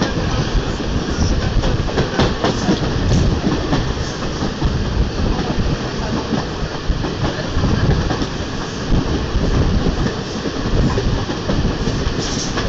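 Train running along the track, heard from inside a moving carriage: a steady rumble of wheels on rails with scattered clacks.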